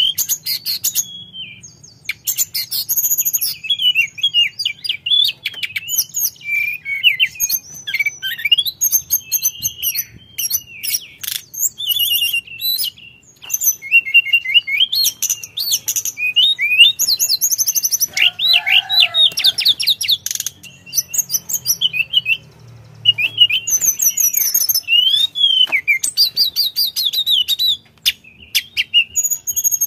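Tledekan (a Cyornis blue flycatcher) singing loudly and continuously: a long run of quick, varied whistled phrases and rapid trills with short pauses between them.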